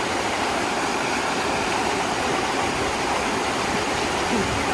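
Waterfall: steady, even rush of falling water.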